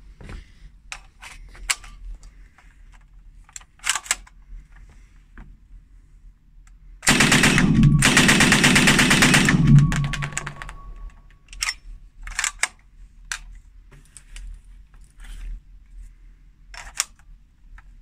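A German MP38 9 mm submachine gun firing one continuous full-auto burst of about three seconds, the sound dying away in a short echo. Short sharp clicks of the gun being handled come before and after the burst.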